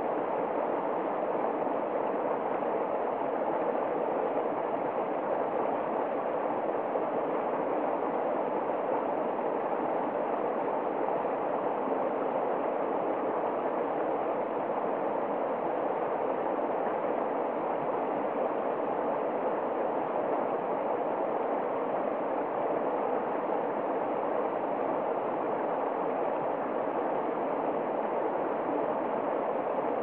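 Mountain stream rushing over rocks in white-water rapids, a steady, unbroken rush of water.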